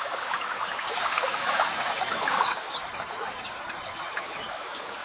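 Birds chirping in a run of short, quick calls over a steady hiss-like background.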